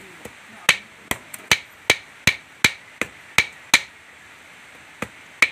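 A long kitchen knife chopping a boiled Muscovy duck neck on a round wooden chopping block: sharp, regular strokes about two and a half a second, then a pause of about a second before two more strokes near the end.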